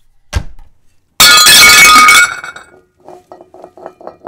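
A short thump, then a loud glass-shattering sound effect a little over a second in, lasting about a second with a ringing tail, followed by a quieter string of short clinks.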